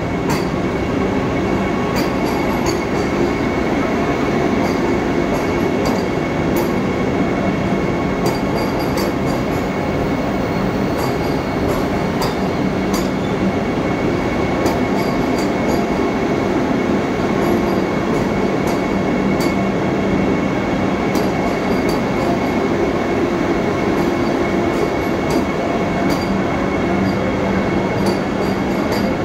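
Vande Bharat Express electric train set rolling slowly past along the platform. It makes a steady loud rumble with a constant hum and a higher whine, and scattered sharp clicks from the running gear.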